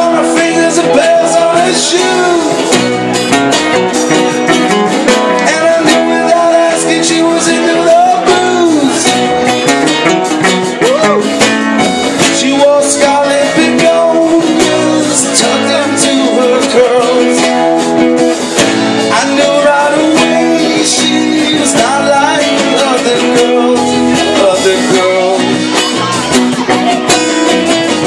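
A live rock band playing loud, with guitars and a drum kit, recorded close to the stage.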